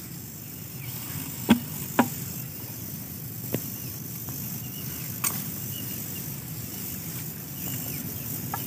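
A few short, sharp snips, about four spread over several seconds, as snake netting is cut through with a cutting tool to free a trapped snake, over a steady outdoor background.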